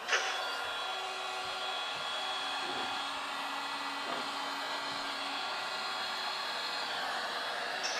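Ryobi 18V One+ cordless heat gun switched on right at the start, then running steadily: a fan rush with a constant whine of several steady tones as it blows hot air.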